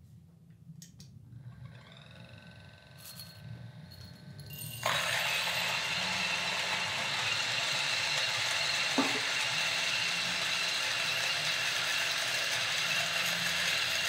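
Option-O Lagom P64 coffee grinder with SSP Red Speed High Uniformity burrs grinding a 20 g dose of coffee beans at an espresso setting. A faint motor whine comes in after a couple of seconds, then about five seconds in the burrs start crushing beans with a steady grinding and a high whine. It is quiet for a grinder, as the reviewer says: "so quiet".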